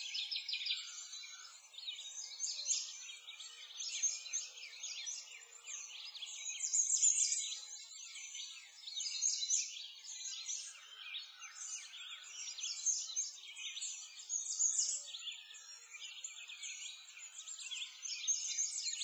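Dense chorus of many songbirds chirping and singing without pause, swelling and fading every second or two.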